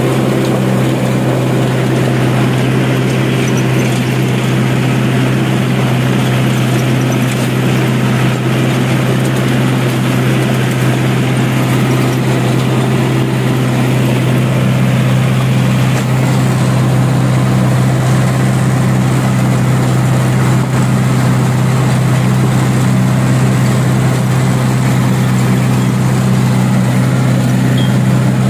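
Mahindra 575 DI tractor's four-cylinder, 2.7-litre diesel engine running steadily under load, driving a rotavator through the PTO shaft as it tills the soil.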